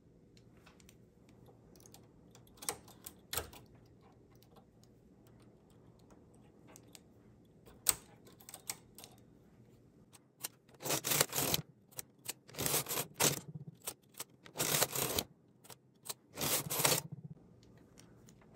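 Carriage of a Singer 328 knitting machine pushed across the metal needle bed four times, each pass a clattering rattle of about a second, knitting four rows between armhole decreases. Before that, a few single sharp metal clicks.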